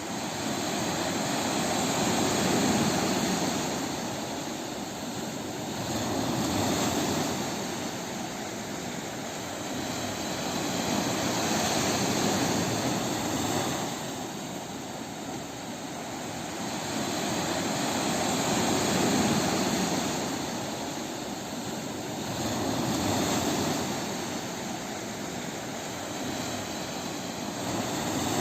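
Ocean waves on a beach: a continuous rush of surf that swells and fades every four to seven seconds as each wave breaks and washes back.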